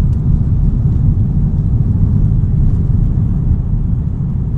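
Steady low rumble inside an airliner's passenger cabin, from the jet engines and the aircraft moving on the ground before takeoff.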